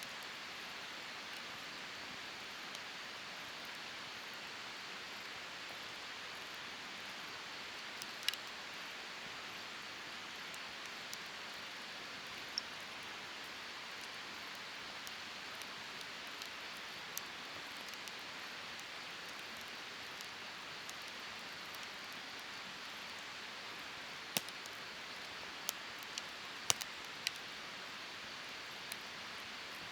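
Wood fire burning: a steady hiss of flames with sharp crackles and pops now and then, several close together near the end.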